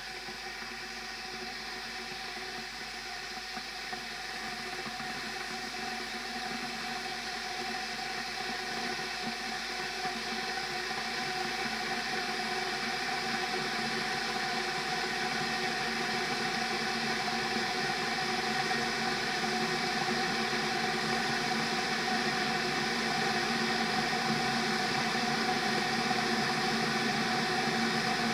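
Kettle heating up toward the boil: a steady rushing hiss with ringing humming tones, slowly and evenly growing louder.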